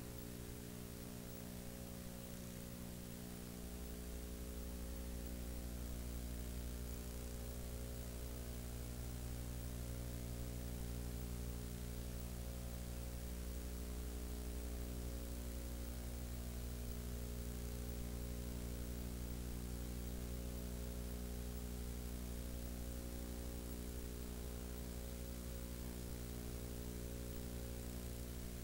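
Steady electrical hum made of many evenly spaced tones, over a constant hiss; the deepest part of the hum gets louder about three and a half seconds in. No explosion or other event is heard.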